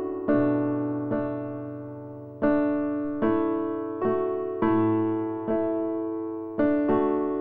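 Soft background piano music: slow chords struck about once a second, each fading away before the next.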